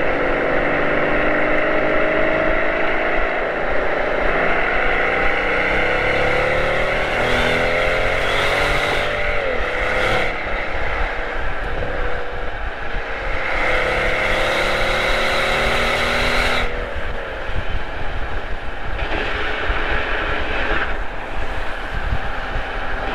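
Mercedes-Benz SL65 AMG twin-turbo V12 pulling under acceleration, heard from inside the cabin over steady road noise. The engine note climbs slowly, drops sharply a little before halfway, then climbs again until it changes about three quarters of the way through.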